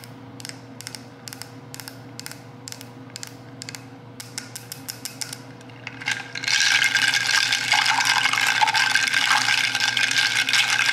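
Long acrylic fingernails tapping and clicking quickly on a glass mason jar full of ice, several taps a second. About six seconds in this gives way to a louder, continuous hissing suck through the jar's straw.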